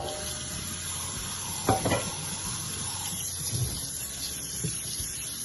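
Tap water running steadily onto drained spaghetti in a strainer, rinsing it so the strands don't stick together. A few short clinks and knocks of kitchenware come through, the first about two seconds in.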